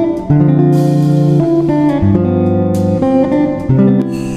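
Instrumental background music led by a guitar, its held notes changing about once a second.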